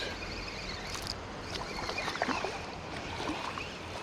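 Water splashing and sloshing with scattered small clicks over the steady noise of a running creek, as a small creek bass hooked on ultralight tackle is played and reeled in.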